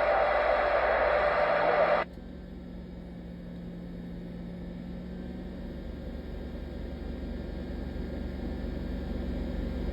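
CB radio hiss and static from the receiver, cutting off suddenly about two seconds in. After it comes a much quieter steady hum and low rumble that slowly grows louder.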